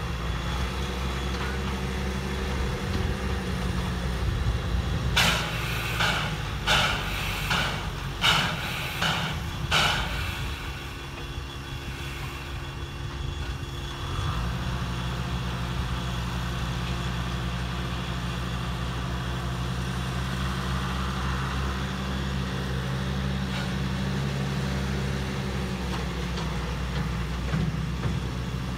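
Diesel engine of a front-loader tractor running steadily, its note shifting about halfway through. Beside it, a standing steam locomotive gives a run of about seven short hissing steam bursts, roughly one and a half a second.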